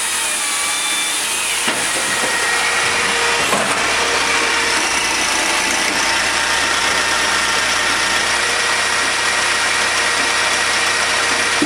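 Tajfun XE 10 sawdust extractor fan running steadily, drawing air and sawdust through a clear spiral hose: an even rush with a steady whine on top and a couple of light knocks in the first few seconds.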